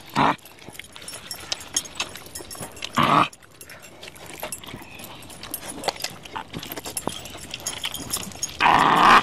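Messy eating by hand: wet chewing, smacking and tearing of soft curried mutton, with many small clicks. Three short growl-like bursts stand out: one just after the start, one about 3 seconds in, one near the end.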